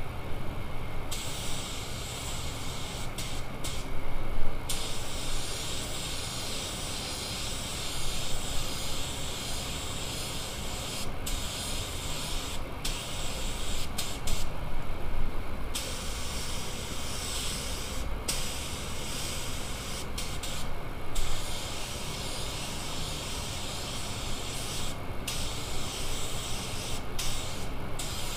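Compressed air hissing from an air spray gun, triggered on and off in bursts of a few seconds with brief pauses between, over a steady low rumble.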